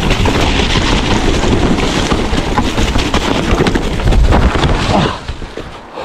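Mountain bike ridden fast down a rough woodland trail: wind rushing over the body-worn camera's microphone over a constant rattle and knocking of tyres and frame on the ground. Near the end the noise drops away as the ride ends in a crash.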